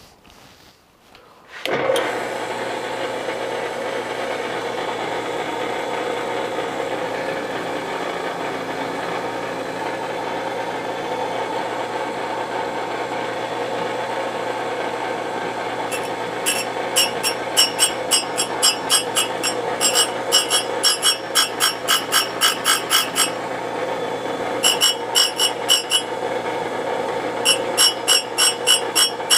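Surface grinder starting up about two seconds in and running steadily. Past the halfway mark the abrasive wheel grinds the steel block in three runs of quick, rhythmic scraping strokes, about three or four a second.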